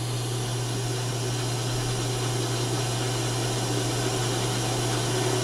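Steady hiss with an even low electrical hum underneath, unchanging throughout.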